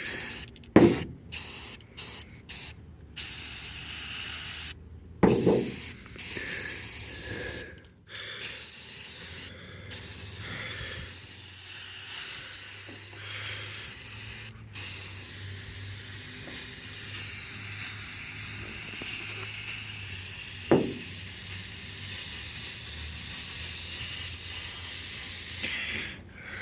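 Aerosol spray paint can spraying in short spurts, then in long steady passes. A few knocks fall in between.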